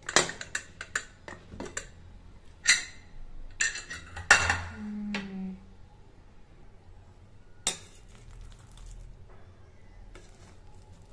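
Aluminium pressure cooker being opened: a run of metal clinks and knocks as the lid is twisted free and lifted off, then one more sharp clink a couple of seconds later.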